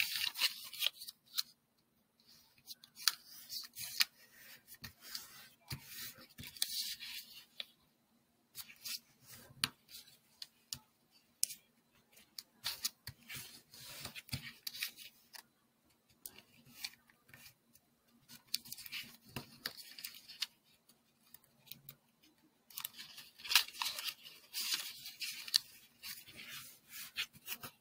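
A sheet of origami paper being folded and creased by hand: crisp rustles, sliding and crinkling as fingers press the folds flat. The sounds come and go, with short pauses between folds. A faint steady hum lies underneath.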